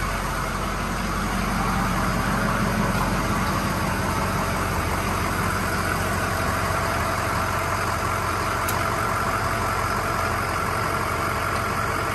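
Ford F-350 tow truck's turbo diesel engine idling steadily.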